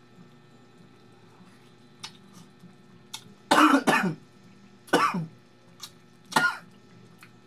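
A man coughing hard, with his hand at his mouth: a double cough about three and a half seconds in, then two single coughs about a second and a half apart.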